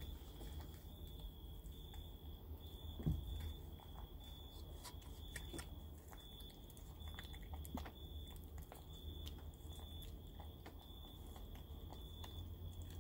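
Kittens chewing food: faint scattered clicks and crunches, over a high, steady tone that pulses on and off a little more than once a second.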